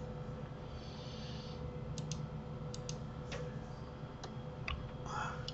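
Sparse clicks of a computer keyboard and mouse, about seven, several in quick pairs, over a faint steady hum.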